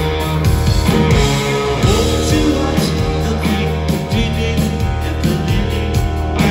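Live rock band playing: electric guitars, bass and drums, with a singer's vocals over them.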